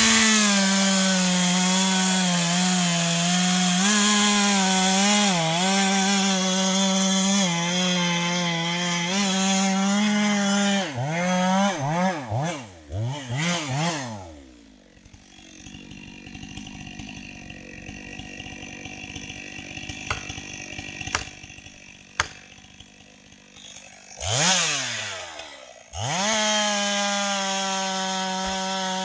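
Stihl MS 462 two-stroke chainsaw running at full throttle and cutting spruce, its pitch dipping now and then under load. Its revs swoop up and down a few times, then it drops to a quieter idle for several seconds with two sharp clicks, before revving back up to full throttle near the end.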